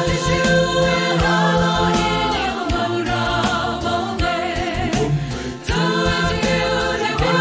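Mixed choir of women's and men's voices singing a gospel song in harmony, holding long notes, with a brief breath break about five and a half seconds in before the next phrase begins.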